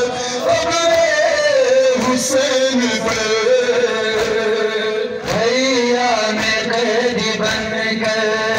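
A male voice chanting a noha, a Shia lament, in long held phrases over loudspeakers, with a short break about five seconds in.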